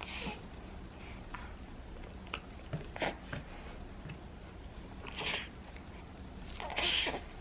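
A baby's mouth sounds while drinking pear juice: short, separate smacks and slurps, about seven of them, the loudest a breathy one near the end.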